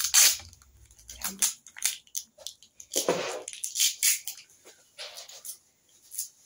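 Brown packing tape being pulled off its roll and wrapped around a broom handle, in several short ripping pulls.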